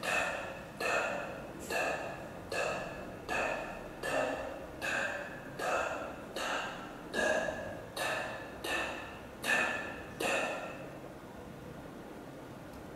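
A ringing tone struck again and again, about every three-quarters of a second, each with a sharp start and a fading ring; it stops about ten seconds in, leaving a steady faint hiss.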